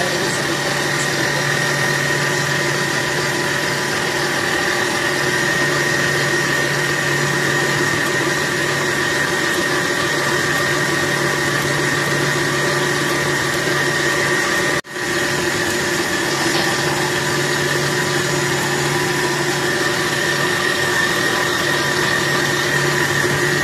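Electric stand mixer's motor running steadily as it kneads yeast donut dough, a constant hum with a high whine over it. The sound drops out for an instant about fifteen seconds in.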